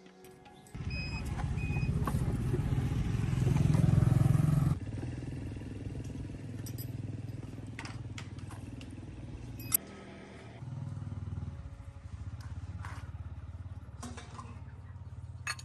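A small engine running with a fast, steady low throb. It starts about a second in, grows louder, then drops abruptly and runs on more quietly, with a few sharp clicks.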